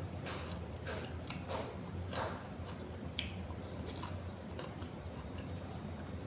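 A person chewing crunchy raw vegetables close to the microphone, with irregular crisp crunches every half second or so.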